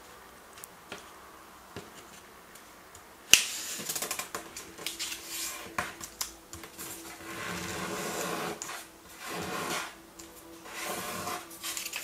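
Origami paper being folded into a triangle and creased flat with the fingers against a table: a sharp tap a little over three seconds in, then dry rustling and rubbing of the paper as the fold is pressed and smoothed.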